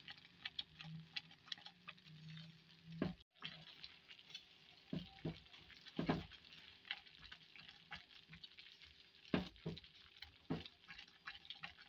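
A silicone spatula stirs and scrapes a thick, thickening egg halwa mixture around a nonstick pan, with soft irregular scrapes and a few louder strokes. A faint frying sizzle from the ghee on low heat runs under it.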